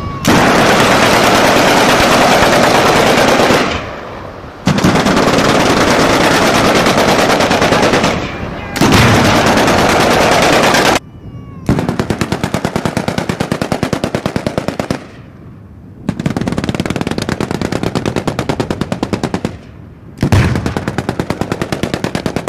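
Machine-gun fire in about six long bursts of two to four seconds each, with short pauses between.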